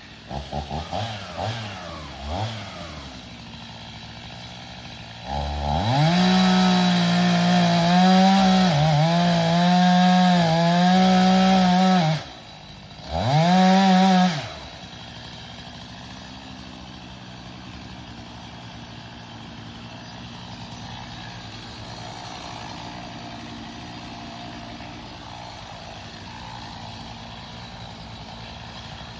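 Two-stroke chainsaw revving a few times, then running at full throttle for about six seconds while felling a tree. It drops off briefly, revs up again for a second or so, then settles to a steady idle.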